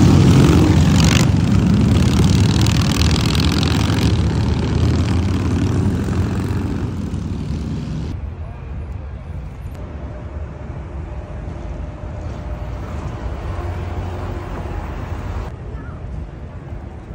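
A cruiser motorcycle's engine running loud and low as it rides past, fading over several seconds. About eight seconds in, this gives way to quieter city street traffic noise.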